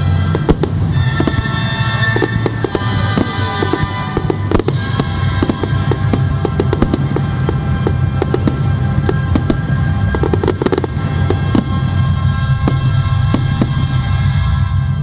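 Fireworks banging and crackling in quick, irregular bursts throughout, over loud music played across the display.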